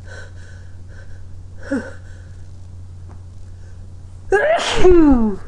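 A man sneezing: a sharp burst about four seconds in, running into a voiced cry that falls in pitch over about a second. A small breathy catch of the voice comes a couple of seconds before it.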